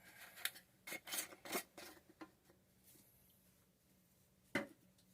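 Several short scraping rubs of a dauber swabbing primer onto the end of a PVC pipe, then a single sharp click near the end.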